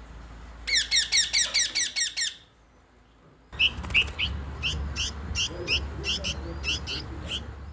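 Rose-ringed parakeets give a quick run of about eight shrill screeches. Then a baby bird chirps over and over, about three a second, begging for food as it is hand-fed with forceps.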